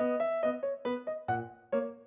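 Background music: a piano or keyboard melody of separate struck notes, about two to three a second, each fading before the next.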